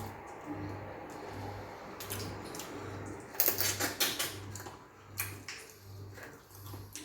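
Light clicks and knocks of eating at a table, with a quick cluster of louder sharp clicks about three and a half seconds in. A faint low hum pulses about twice a second underneath.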